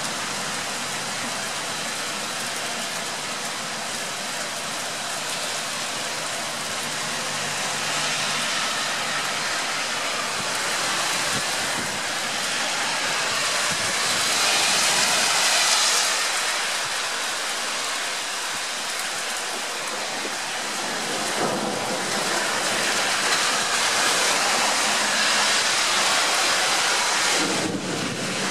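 Heavy rain pouring down in a steady, continuous hiss, swelling a little louder about halfway through.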